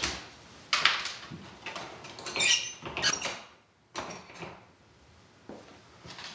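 The wire front door of a plastic pet carrier is shut and latched: several sharp clicks and knocks, with a brief metallic squeak about two and a half seconds in. A single small knock follows near the end.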